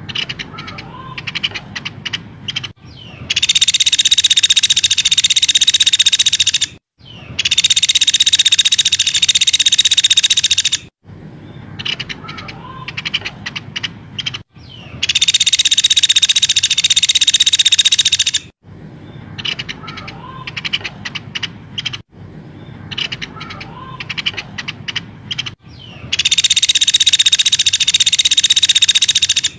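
Recorded songbird tutor track: loud, dense, high-pitched trills about four seconds long cut in and out abruptly four times, alternating with scattered short chirps and whistled notes.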